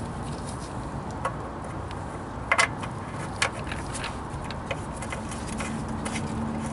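A few light metallic clicks and taps, the loudest a quick double click a little past halfway, from handling the Fumoto oil drain valve and its washer while fitting them at the oil pan drain hole. A steady low background hum runs underneath, with a faint steady tone joining near the end.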